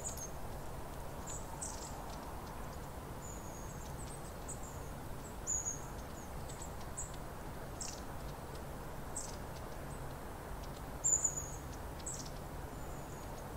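Long-tailed tits calling: thin, very high short notes and quick downward slurs, one every second or two, with a louder pair about eleven seconds in. A steady low background noise runs beneath them.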